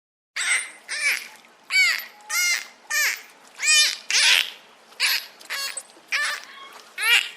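Animal calls: a rapid series of about a dozen short, harsh, cawing cries, roughly two a second.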